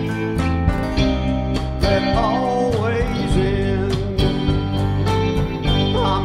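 Live rock band playing an instrumental break: drum kit with cymbals, bass and guitar, with a lead melody line whose notes bend and waver in pitch.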